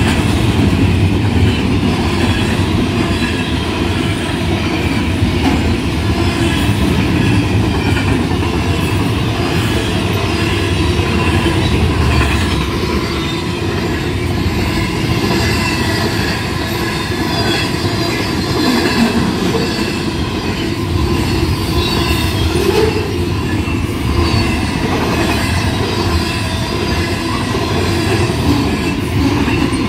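Intermodal freight train's cars rolling steadily past over a grade crossing: a continuous rumble of steel wheels on rail, with a faint, wavering high squeal of wheels.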